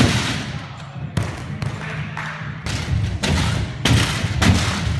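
Gymnasts' hands and feet striking a raised tumbling track during a tumbling run: a quick, irregular series of thumps.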